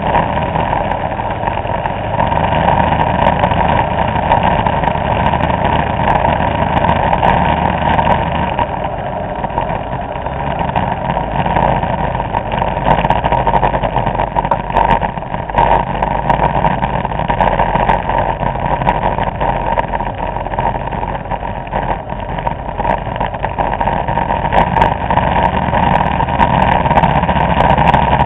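Vespa scooter engines running steadily under way in a group ride, a continuous engine drone with small swells in loudness.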